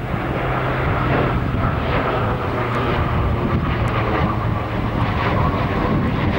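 ATR 72-600 turboprop's Pratt & Whitney PW127 engines and six-bladed propellers running with a steady drone and a low, even hum.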